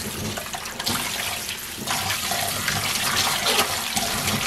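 Kitchen tap running into a stainless steel bowl while lettuce leaves are swished and rubbed in the water, which splashes steadily.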